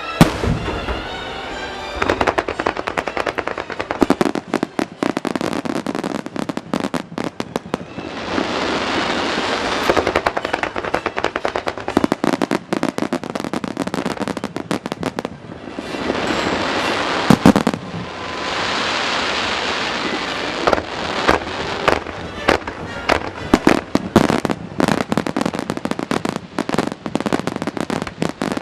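Aerial fireworks going off in a rapid barrage: shell bursts one after another with dense crackling, and several stretches of loud hissing sizzle.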